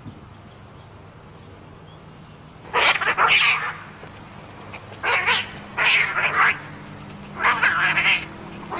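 Four short, harsh animal cries, each lasting under a second, over a low steady hum.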